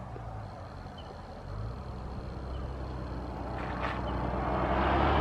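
Low, steady hum of an idling vehicle engine, with wind noise on the microphone growing louder over the last few seconds.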